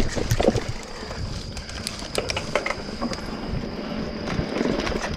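Mountain bike rolling over a rock slab and rough dirt trail: tyres grinding over stone with scattered knocks and rattles from the bike as the wheels hit rocks, loudest about half a second in.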